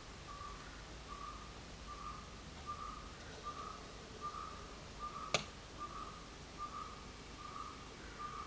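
A bird repeating a short whistled note about one and a half times a second, over a faint hiss from batter frying in hot oil. A single sharp click about five seconds in.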